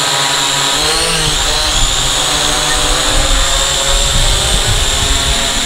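Syma X8 Pro quadcopter's motors and propellers buzzing with a steady high whine as it climbs and hovers, lifting a balloon tied beneath it.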